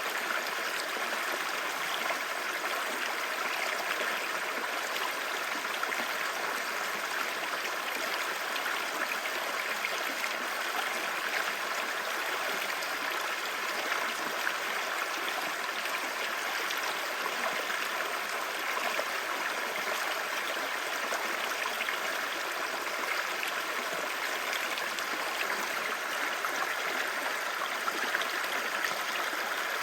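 Clear stream babbling steadily over rocks, a continuous rushing and splashing of flowing water.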